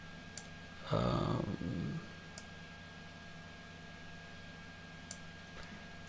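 Three faint, sharp computer-mouse clicks spaced a couple of seconds apart, made while an on-screen object is being dragged and resized. About a second in there is a brief low murmur of a man's voice, and a faint steady high whine runs underneath.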